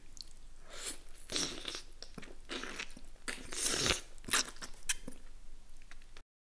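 Crunching, chewing sounds: a run of uneven crunches that grow louder toward the middle, the loudest a little before four seconds in, then cut off suddenly about six seconds in.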